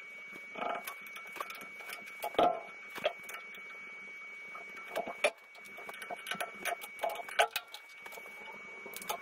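Precision Matthews 1440TL lathe taking a roughing cut with a boring bar inside a heat-treated 4140 steel hub: a steady high whine under irregular clicking and ticking from the cut.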